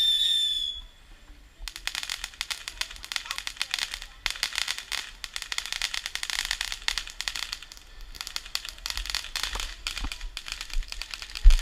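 A firework's shrill whistle dies out in the first second. From about two seconds in, dense crackling fireworks pop and sizzle continuously, with a couple of low thumps near the end.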